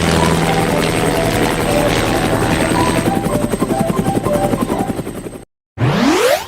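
A rapid, steady chopping vehicle sound. It cuts off suddenly about five and a half seconds in, followed by a quick rising whoosh.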